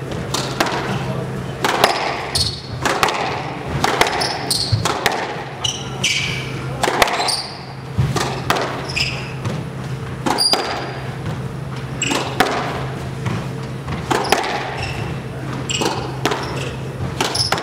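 Squash rally: the ball is struck by rackets and thuds off the walls and glass about once a second, with short high squeaks from shoes on the hardwood court.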